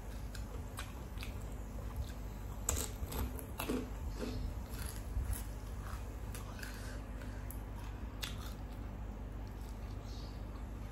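A person eating close to the microphone: bites and chewing with scattered short crunchy clicks, busiest a few seconds in, over a steady low hum.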